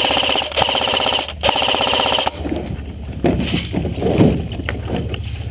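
Echo1 RPK airsoft electric gun firing on full auto in three quick bursts, a fast even mechanical rattle that stops a little over two seconds in. A steady low engine hum from the vehicle runs underneath.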